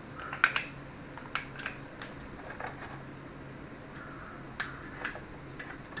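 Scattered light clicks and taps of plastic and wire being handled as a 12 V computer fan's power lead and DC plug are connected for a test, over a faint steady low hum.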